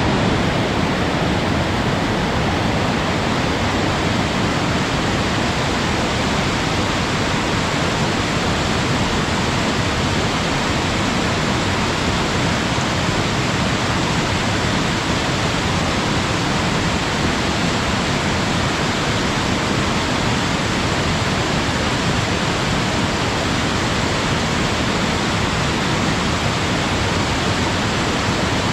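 Waterfall pouring steadily, a dense, even rush of falling water with no change throughout.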